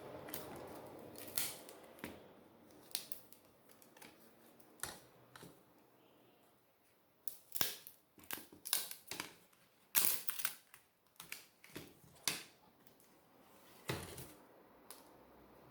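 Irregular sharp clicks and taps of small tools and parts being handled while taking apart a Samsung Galaxy Tab A tablet to remove its LCD screen, thickest in a flurry between about seven and thirteen seconds in.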